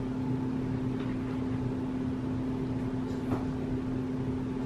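Steady mechanical hum of a running motor or appliance, with one constant low tone over a softer rumble, and a faint tick about three seconds in.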